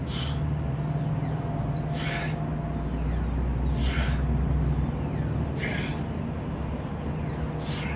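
A man breathing out sharply on each repetition of a biceps curl on an outdoor weight machine: five short exhalations, about one every two seconds, over a steady low background rumble.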